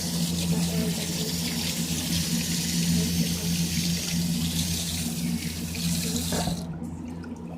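Running water, a steady hiss that stops near the end.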